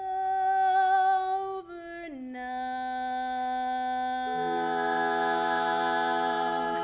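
Women's barbershop chorus singing a cappella in slow, sustained chords on the word "over". The chord shifts about two seconds in, and lower voices join after about four seconds to fill it out.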